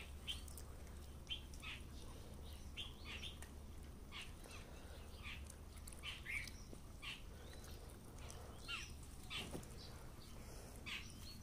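Small birds chirping: short, faint calls repeated irregularly a few times a second, over a low steady hum.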